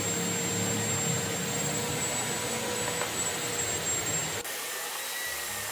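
Steady rushing noise of a fan-type machine running, with faint steady high whines; the noise changes abruptly about four and a half seconds in.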